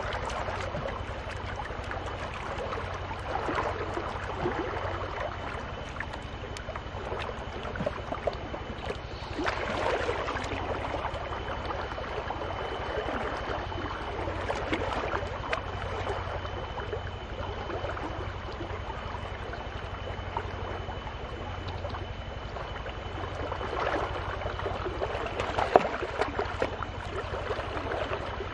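Water sloshing and swishing in a wooden gold pan as it is swirled and dipped in shallow water, the swishing swelling and easing every few seconds, with a sharp knock near the end.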